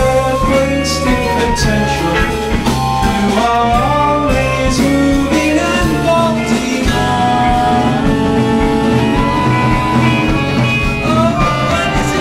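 A live band playing a song: guitar, bass and drums, with a melody line moving over them.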